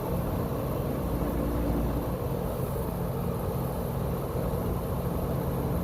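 Dehumidifier running, its compressor giving a steady low hum with a bad rattle that shakes the floor.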